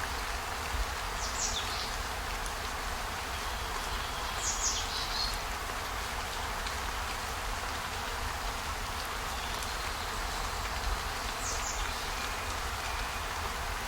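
Steady hiss of rain with a low rumble underneath, broken by a few short high-pitched ticks.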